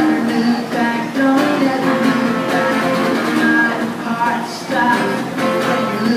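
Acoustic guitar strummed in a steady rhythm, playing an instrumental passage of a song.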